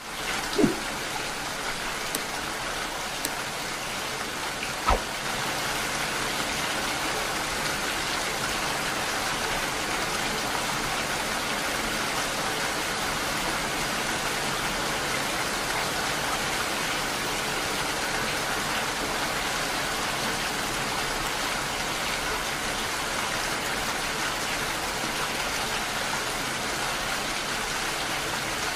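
Steady rain, an even hiss that holds level throughout, with two brief louder knocks or drips in the first five seconds.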